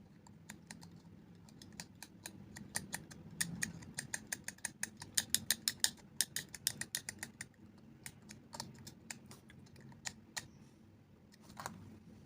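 Small hand tools being worked on the earphone jack and its wires: quick sharp clicks and snips, a few scattered at first, then a dense run of several a second through the middle, then a few more toward the end.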